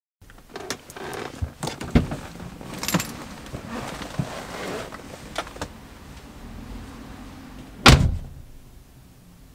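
Someone climbing out of a car's driver's seat: clothing rustling against the leather seat with a few clicks and knocks, then the car door shut with a loud thud near the end.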